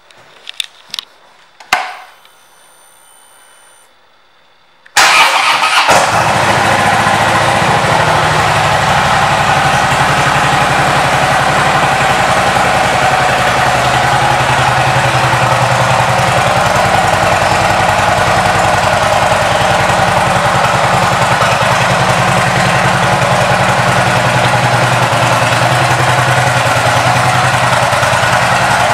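A few clicks and a faint hum for about two seconds, then the 2014 Harley-Davidson Dyna Switchback's Twin Cam 103 V-twin, fitted with Vance & Hines exhaust, starts suddenly about five seconds in and idles steadily.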